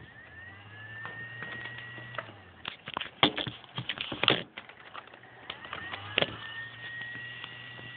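Small electric fan running with a low hum and a whine that rises in pitch and levels off as it speeds up. In the middle comes a cluster of loud knocks and clicks from the camera being handled, and near the end the fan's whine rises again as it speeds up.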